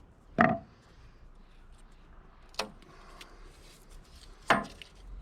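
Three sharp metallic clicks and knocks from hand tools and the old brass air-line fitting being worked loose and handled, the loudest about half a second in with a short ring.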